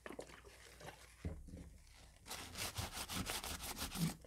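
Paper towel rubbing over the receiver of a Daisy Avanti 753 air rifle as it is wiped down for degreasing. Faint scratching at first, then quick repeated rubbing strokes from about two seconds in.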